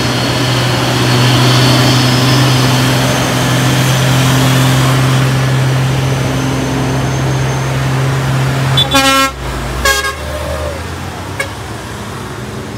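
Heavy truck engine droning steadily under load, then two short horn toots, a longer one about nine seconds in and a brief one a second later.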